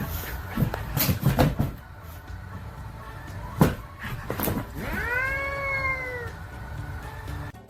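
A cat meowing: one long, drawn-out meow about five seconds in, preceded by a few sharp knocks.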